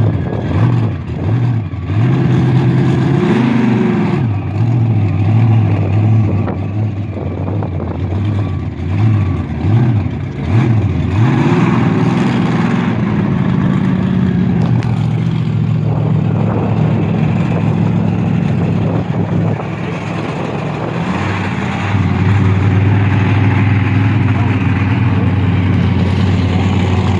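The Raminator monster truck's engine revving in a string of short rises and falls, then running more steadily, louder over the last few seconds.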